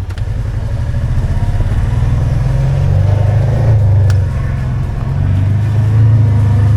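Car engine pulling away and running under load, growing louder over the first few seconds, easing briefly a little past four seconds, then running steadily again.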